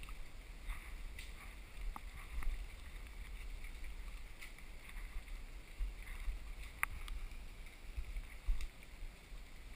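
Footsteps and brush while hiking a forest trail, with a steady low rumble on the microphone and a few sharp clicks.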